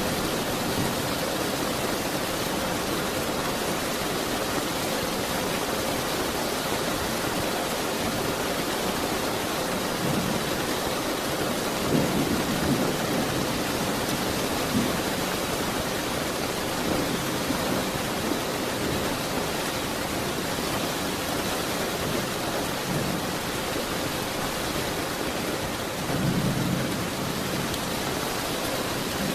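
Steady rain falling in an even hiss, with low rumbles of thunder swelling a few times, most strongly about twelve seconds in and again near the end.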